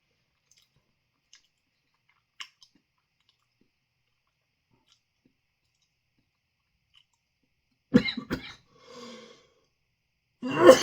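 A man coughing: two or three sharp coughs about eight seconds in, a breath, then a louder, harsh coughing fit near the end, set off by dry powdered hot-pepper dust caught in the back of his throat.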